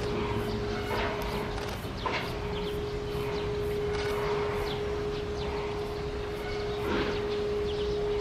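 A steady hum on one held tone, over outdoor background noise with a few faint short clicks or chirps.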